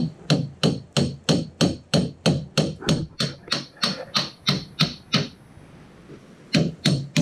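Hammer striking the end of a Honda rear-roller mower's metal roller shaft in quick, even blows, about three a second, to knock the slider off the shaft. The blows stop about five seconds in and start again near the end.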